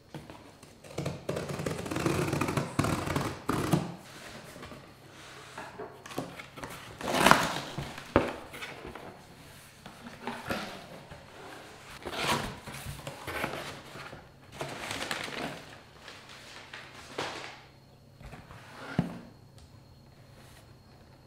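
Scissors slicing through the packing tape on a cardboard box, a dense scraping for the first few seconds. Then the box is opened and handled, with cardboard flaps pulled apart, the paper packing moved about, and a string of separate knocks and thuds. The loudest is a sharp one about seven seconds in.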